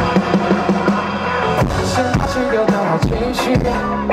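Live band playing a pop song, with a drum kit striking throughout over a steady bass line.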